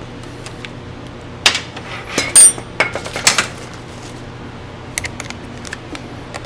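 A few light metallic clinks and clicks from blower parts and a cordless drill/driver being handled on a metal workbench, the sharpest a short ringing clink about two and a half seconds in.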